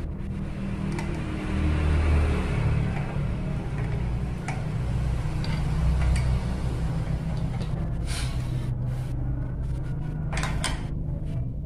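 Nuts and bolts on a CNC carriage plate being tightened by hand and with pliers, giving scattered small metallic clicks, more of them near the end, over a steady low rumble.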